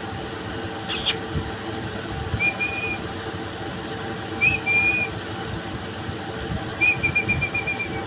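Pet parrots beak to beak in a cage giving soft high chirps: two short ones, then a quick run of repeated short notes near the end. A sharp click about a second in, and a steady background hiss and hum.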